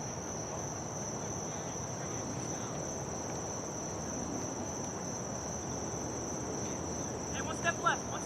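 Crickets chirring steadily in one high-pitched band over a low, even rushing noise. A few short, distant shouts come near the end.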